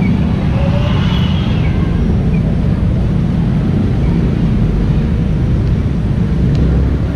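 Steady, loud low rumble of outdoor background noise, with no distinct events.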